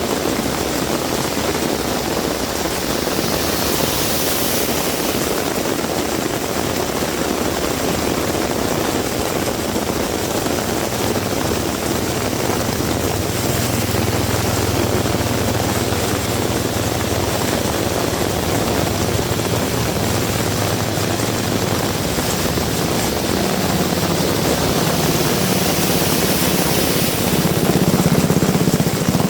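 Heavy rain pouring steadily. A low engine hum of a passing vehicle comes in about ten seconds in, and another grows louder near the end.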